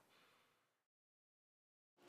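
Near silence: faint room tone that fades out within the first second, then dead digital silence at a scene cut.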